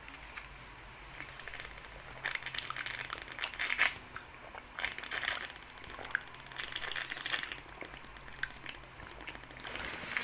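A person drinking long swallows from a water bottle. The sound is a quiet crackling rustle of drinking and handling that swells and fades every second or two.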